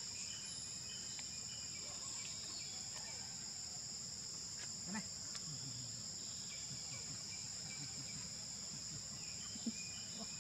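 Insects droning steadily at a high pitch, in two even tones, with a few faint low sounds and a short click near the end.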